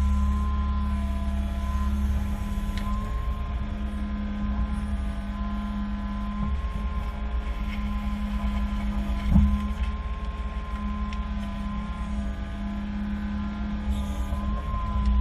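Engine running steadily with a constant hum and a faint steady whine, and a single sharp knock about nine seconds in.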